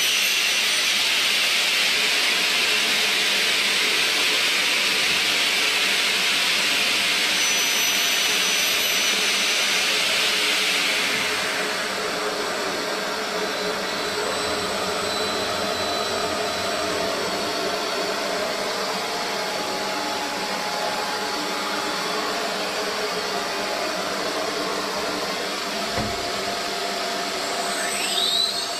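CNC bridge saw at work on a slab: a steady, loud hiss over machine hum. About a third of the way in the hiss drops away, leaving the steadier hum with faint whining tones, and near the end a whine sweeps in pitch.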